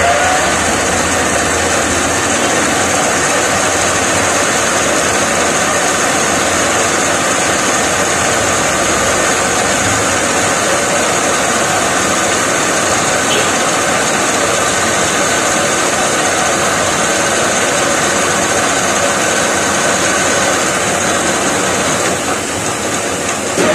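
Metal lathe running steadily with its chuck spinning: a continuous mechanical whir with a steady high hiss over it.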